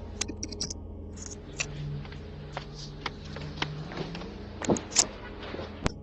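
Doorbell camera's microphone picking up a steady low hum with scattered clicks and knocks, two louder knocks coming close together about three-quarters of the way through.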